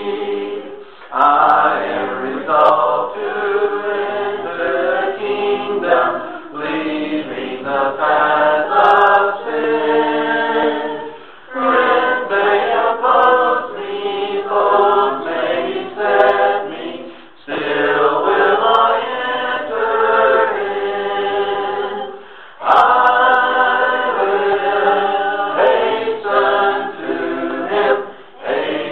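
A group of voices singing a hymn without instruments, in phrases of about five seconds with brief breaks between them.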